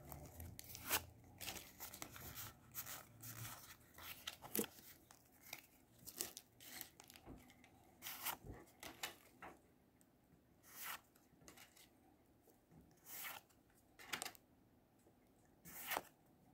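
Pokémon trading cards and their foil booster-pack wrapper being handled: faint, scattered rustles and soft flicks, about one a second, as the cards are slid off the stack one by one.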